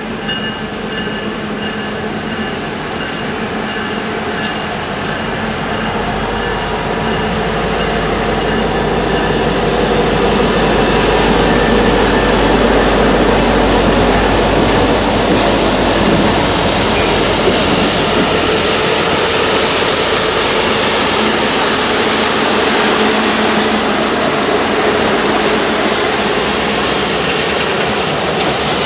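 A diesel locomotive hauling an AquaTrack leaf-clearing train, with water tank cars, passes close by, the noise of engine and wheels building over the first ten seconds to a loud, steady rush. High-pressure water jets hiss as they blast leaves off the rails. A bell rings for the first few seconds.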